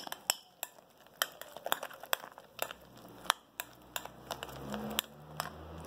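A utensil clicking and scraping against a glass bowl while pineapple filling is folded into whipped cream, making many sharp, irregular clicks.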